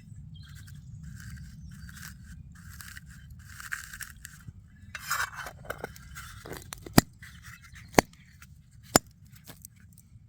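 A run of short scraping strokes, then a louder swish and three sharp clicks about a second apart.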